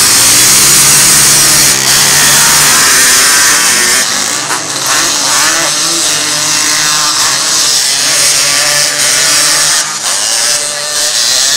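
Several three-wheeler ATC engines racing on a dirt track, their pitch rising and falling repeatedly as the riders rev through corners and jumps. Loudest in the first couple of seconds.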